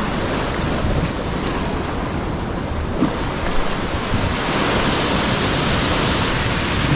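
Ocean surf surging and breaking as whitewater into rocky gullies, a steady wash that grows a little louder about four seconds in, with wind buffeting the microphone.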